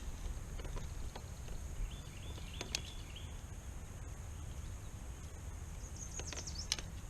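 Outdoor lakeside ambience: a steady low wind rumble and a high steady hiss, with a bird chirping in two short spells, a couple of seconds in and near the end, and a few sharp clicks.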